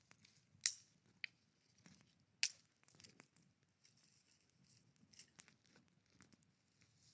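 Wood campfire crackling faintly, with scattered sharp pops, the loudest about two-thirds of a second and two and a half seconds in.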